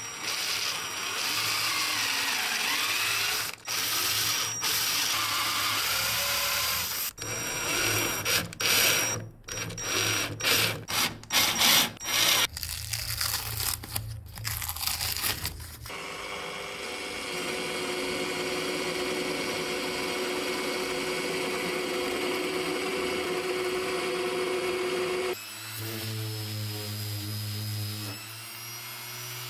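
A power drill with a twist bit boring holes through a plywood block, running steadily and then in short repeated bursts with brief stops between holes. Near the end a random orbital sander starts with a steady pitched hum.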